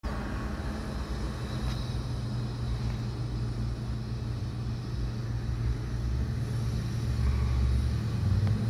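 Car engine and road noise heard from inside the moving car's cabin: a steady low drone and rumble, its pitch rising slightly near the end.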